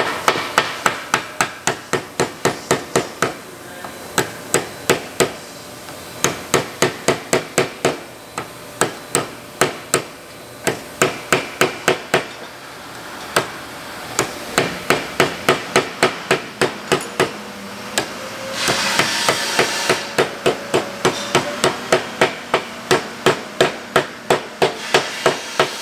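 Hammer pounding a steel dust cap to drive a new bearing seal down into a Pottinger Terra Disk bearing housing. The metallic blows come in runs of about two to three a second, with short pauses between runs, and there is a short burst of noise about three-quarters of the way through.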